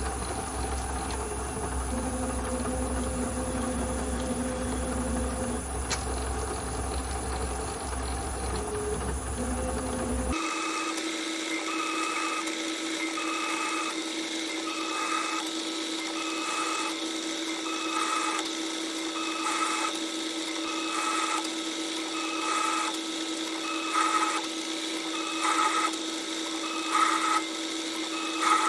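Small metal lathe cutting a thread under electronic lead screw control. At first there is a low steady hum. About ten seconds in, the sound changes to a steady tone with a motor whine and clicks that repeat about once a second, one for each automatic threading pass of the carriage. The repeats grow louder near the end.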